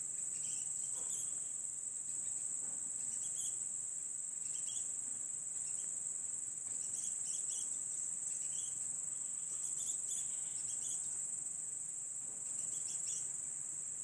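Insects keeping up a steady, high-pitched drone, with brief high chirps scattered through it.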